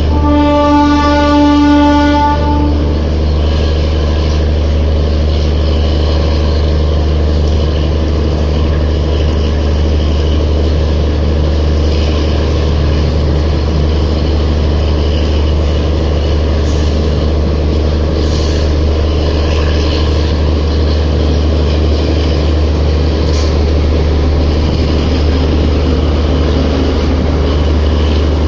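A DEMU train's horn blows one steady note for the first two and a half seconds. After that comes the train's steady low diesel engine hum and the rumble of its coaches rolling slowly out, with a few sharp clicks from the wheels in the second half.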